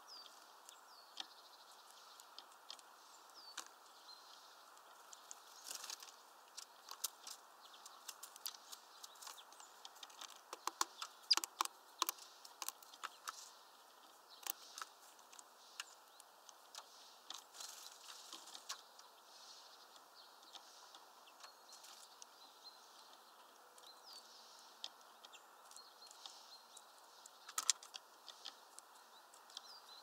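Grey-headed woodpecker pecking at a suet ball in a wire spiral feeder: irregular sharp taps, coming thickest about ten to thirteen seconds in. Faint high bird chirps are heard now and then.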